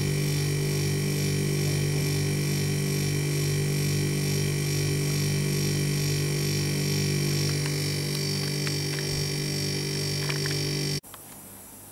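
Refrigeration condensing unit running with a loud, steady buzzing hum, which cuts off abruptly about eleven seconds in as the system is switched off. The owner puts the noise down to an oversized 3/8-inch liquid-line solenoid valve that will not snap shut because the refrigerant flow through its port is too slow.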